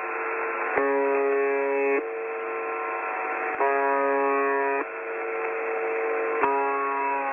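Steady electronic alert tones, narrow and thin like a broadcast signal, switching back and forth between a fuller, louder chord and a thinner one every second or so. There is a short click each time the fuller chord comes in.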